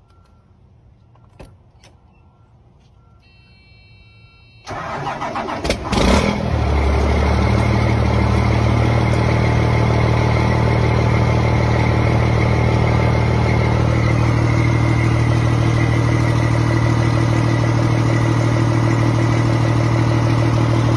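A straight-piped Cummins M11 inline-six diesel, not run for over a week, cranks for about a second and a half and catches almost at once on a cold start, then idles loud and steady. A few short beeps come before the cranking. The owner says the engine has bad injectors.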